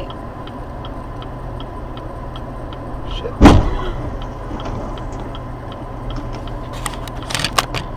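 Two cars colliding in the intersection ahead, heard from inside a car's cabin: one loud sudden crash about three and a half seconds in, with a brief ring after it. A steady low cabin hum and a faint regular ticking about twice a second run underneath, and a few sharp clicks and knocks come near the end.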